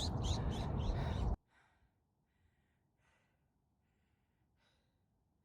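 Wind buffeting the microphone that cuts off abruptly about a second and a half in, followed by near silence with faint soft breaths about once a second.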